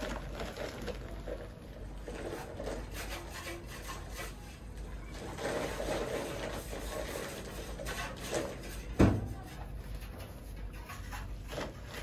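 Plastic sack rustling and crackling as white powder is shaken out of it into a bowl of water, with scattered small clicks and one sharp knock about nine seconds in.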